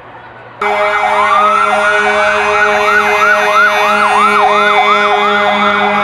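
Siren of a passing NYPD police emergency truck, starting suddenly about half a second in with one rising wail, then switching to a fast yelp of about three sweeps a second over a steady low tone.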